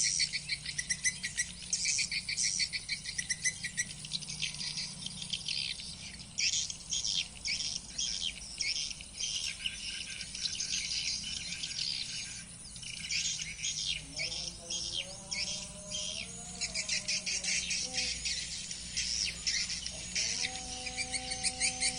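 Swiftlet twittering: the swiftlet-house call sound playing from tweeter speakers, possibly with live swiftlets, in rapid trains of high chirps that pause briefly about halfway through. From about two-thirds of the way in, fainter, lower wavering tones join.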